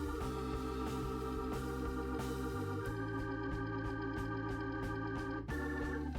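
Background music: sustained organ-like keyboard chords that change every second or two over a light steady beat.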